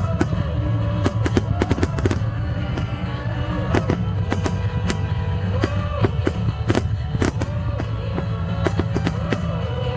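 A fireworks display: many sharp bangs and crackles in quick, irregular succession over loud music with a heavy bass.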